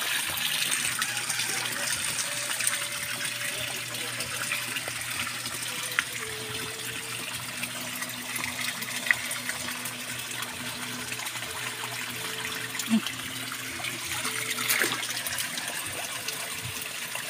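Water pouring steadily from a koi pond filter's outlet and splashing into the pond, a continuous gush.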